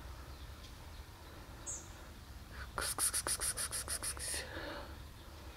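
A quick run of about a dozen rhythmic scratching strokes, about eight a second, lasting around a second and a half midway through, over faint outdoor background noise.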